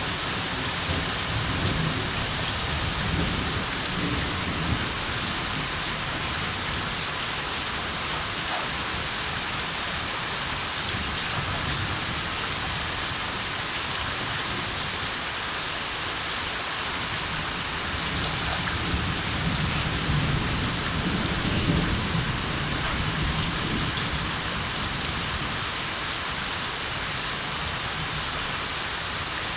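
Steady heavy rain falling, with distant thunder rumbling low and soft, once in the first few seconds and again about two-thirds of the way through.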